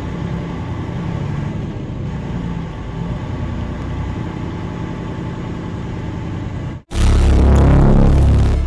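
Steady engine and road rumble inside a truck's cab as it rolls slowly along a highway. About seven seconds in it cuts off abruptly and loud electronic dance music starts.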